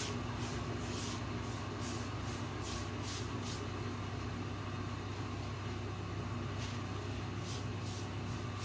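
Electric fan running with a steady hum, just switched on to speed the drying of fresh paint. Over it come quick swishes of a paintbrush stroking chalk paint across the dresser top, about three a second for the first few seconds and again near the end.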